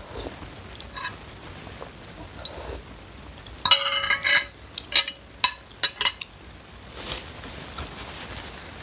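Metal spoon and fork clinking and rattling against a white bowl of noodle soup as they are set down in it: a quick cluster of ringing clinks starting about a third of the way in, then several single clinks over the next two seconds. Fainter rustling follows near the end.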